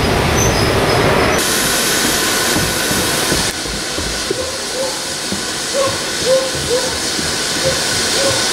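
A steam-hauled train rolls past for the first second or so. After a cut comes a steady hiss of steam from standing steam locomotives, the LSWR T9 4-4-0 No.30120 coupled with a green engine, with a few short chirps over it.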